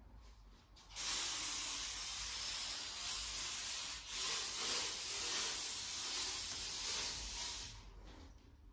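A loud, steady hiss, starting about a second in, breaking off for a moment near the middle and going on again before fading out near the end.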